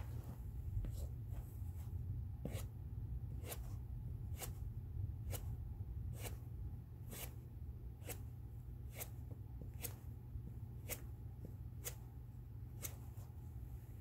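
Sharp clicks repeating at an even pace, a little under one a second, over a steady low hum, with a few fainter clicks in the first couple of seconds.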